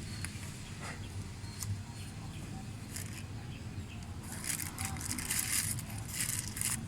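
Hand work on a car door's handle: faint clicks, then light rustling and scraping in the second half, over a low steady hum.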